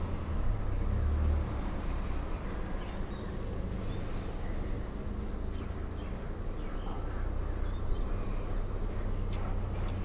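Ford Carry Boy pickup's 2500 cc diesel engine idling steadily with the bonnet open, a low even hum.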